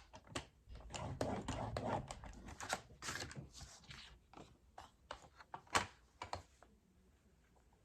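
Cardstock being scored on a scoring board: a scoring tool drawn along the board's groove and the paper shifted and pressed. This makes a run of short clicks and brief scrapes that stops about a second before the end.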